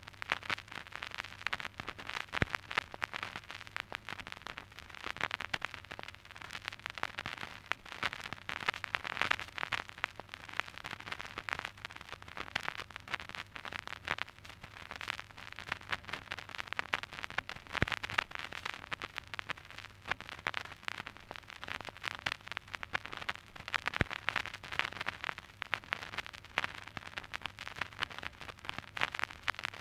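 Surface noise of an old vinyl record: dense, irregular crackle and pops over a steady hiss, with a faint low hum underneath.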